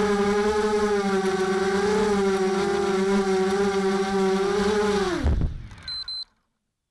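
ZMR250 quadcopter's brushless motors and propellers buzzing steadily in flight, their pitch wavering slightly. About five seconds in the motors spool down with a steeply falling pitch and a knock as it sets down in grass, followed by two short high beeps.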